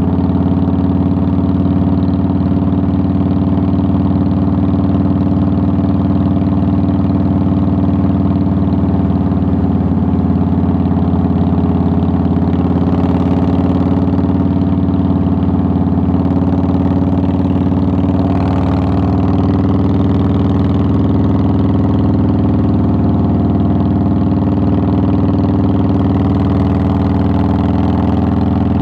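Harley-Davidson Softail Deluxe's air-cooled V-twin engine running steadily on the move, with a brief shift in its note about two-thirds of the way in.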